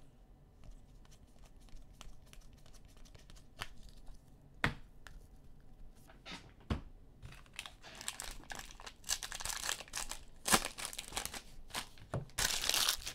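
Trading cards handled and squared in the hands with faint scattered clicks, then a foil card pack crinkling and tearing open over the last few seconds, loudest near the end.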